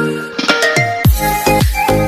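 Background electronic dance music. Sustained pitched chords give way, about a second in, to a deep, steady kick-drum beat.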